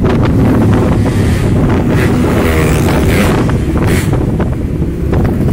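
Wind buffeting the microphone of a moving motorcycle, a loud, constant low rush, with the bike's engine and road noise underneath.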